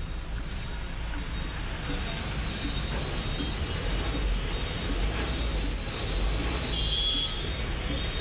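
Steady low vehicle rumble heard from inside a car's cabin, with a few faint high tones near the end.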